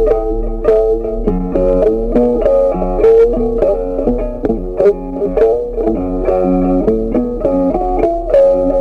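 Instrumental background music: a plucked guitar melody over a bass line, with notes changing several times a second.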